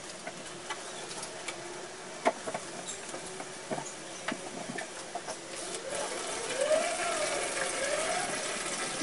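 Dishes and kitchen utensils being handled: scattered light clinks and knocks, with a wavering tone that rises and falls over the last few seconds.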